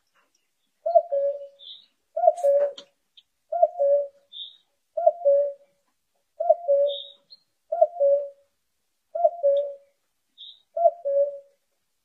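Common cuckoo calling its two-note "cu-coo", a higher note dropping to a lower one. It repeats steadily about every one and a half seconds, eight times.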